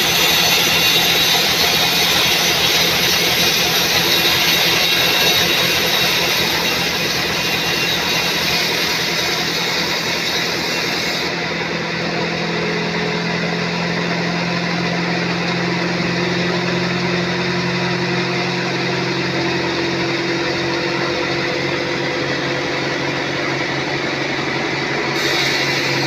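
Sawmill band saw cutting lengthwise through a teak log: a loud, steady noise of the blade in the wood, with the machine's motor humming under it. About eleven seconds in, the high hiss drops away suddenly and the steady hum comes to the fore, until the hiss returns near the end.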